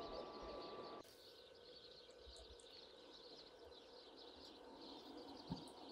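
Quiet rural outdoor ambience with faint birds chirping. The background drops abruptly about a second in, and there is one soft thump near the end.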